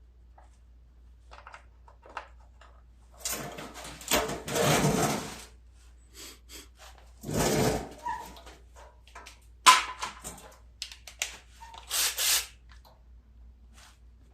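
Parts and hand tools being handled during engine reassembly: scattered knocks, clicks and rustling in short bursts, with one sharp click about two-thirds of the way through.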